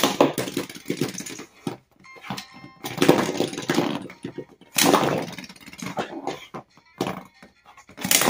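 Lego spinning tops whirring and rattling on a plastic bin lid, with sharp clacks of Lego pieces striking. The loudest stretches of rattling come about three and five seconds in.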